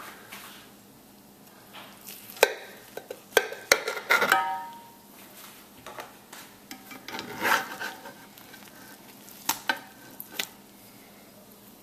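A metal knife and spatula scraping and clicking against a cast iron skillet as a meatloaf is cut and a slice is lifted out: scattered sharp clicks, a cluster of knocks about four seconds in, and a longer scrape around seven seconds in.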